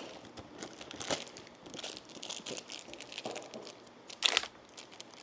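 Small plastic bag crinkling and a cardboard calendar box being handled while a tiny bagged Funko figure is taken out. There are scattered soft rustles and one brief louder rustle about four seconds in.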